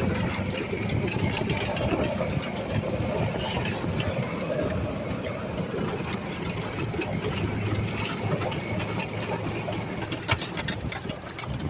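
Small vehicle engine running with a steady low hum and constant mechanical rattling and clicking.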